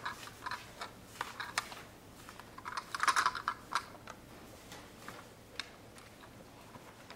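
Scattered light clicks and taps, with a short flurry of them about three seconds in.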